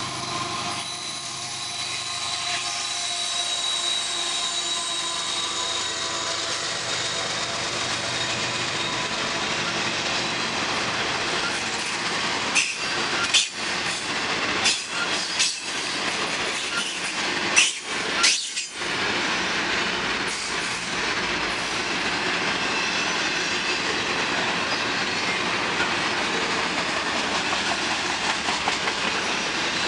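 Freight train cars (covered hopper, then double-stack container well cars) rolling past at close range: a steady noise of steel wheels on rail. A faint thin squeal in the first few seconds, and a run of about six sharp knocks and clacks around the middle.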